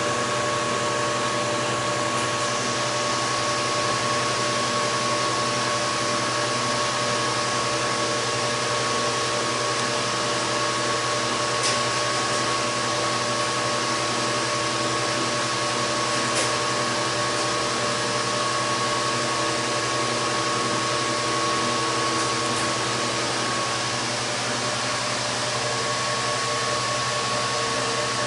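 Steady rushing hiss with several steady humming tones from a running glass-column still, vapour bubbling through its copper bubble-cap plates during a spirit run.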